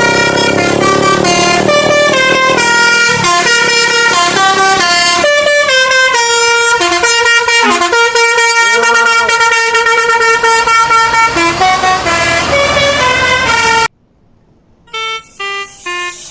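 Bus telolet horn, a Basuri multi-tone air horn, playing a stepping melody of held notes. It cuts off abruptly about 14 seconds in, and short separate notes start near the end.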